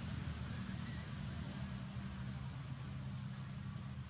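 Steady low engine-like rumble, even throughout, with a thin high steady whine over it and a brief faint chirp about half a second in.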